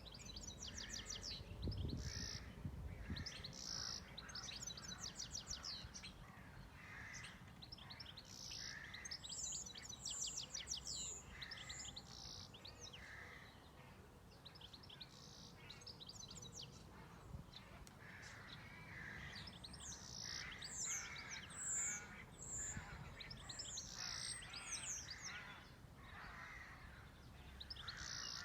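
Several wild birds singing and calling: quick high chirps and fast trills repeat throughout, with rougher, lower calls mixed in.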